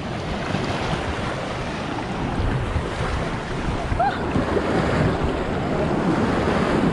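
Lake water sloshing and splashing right at the microphone, mixed with wind rumbling on the microphone. A brief short voice sound about four seconds in.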